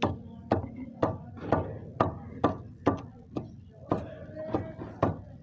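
Repeated knocks on a small plastic plant pot, about two a second, struck to loosen the root ball so it slides out whole without breaking the pot.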